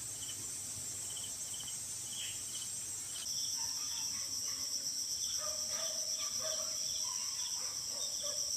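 Insects trilling in a steady, high-pitched chorus that steps up in loudness about three seconds in, with short chirps repeating over it.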